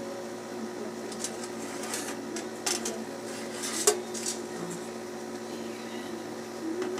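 Light clicks and clatter from handling a small oven toaster and its metal parts, with one sharper click just before four seconds in.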